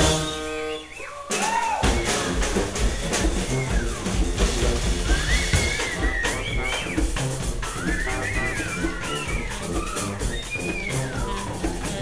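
Live band with horns and drums: a held horn chord dies away at the start, and about two seconds in the drums start a steady beat, with a high wavering melody line over it from about five seconds in.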